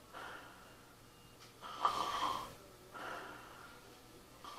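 A man making deliberate snoring sounds through his throat and nose while holding a jaw-positioning bite gauge in his mouth: several short, rough breaths about a second apart, the loudest about two seconds in. The snore is a little less with this jaw position but not yet gone, a sign that the lower jaw is not yet far enough forward.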